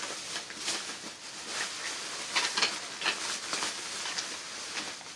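Thin plastic shopping bags rustling and crinkling as hands rummage through them, with irregular crackles throughout.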